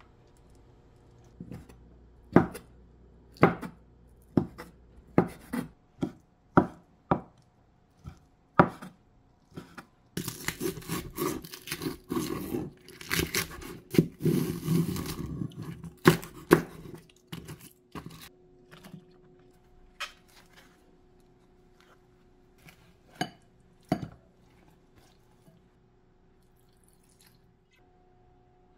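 Kitchen knife chopping green onion on a wooden cutting board. Single strikes come about a second apart, then a fast run of chopping in the middle, then a few light knocks.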